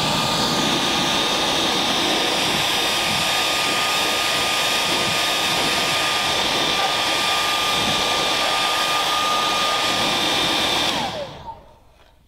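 Hand-held hair dryer running steadily with a whine over its rushing air. It is switched off near the end, its pitch falling as the motor winds down.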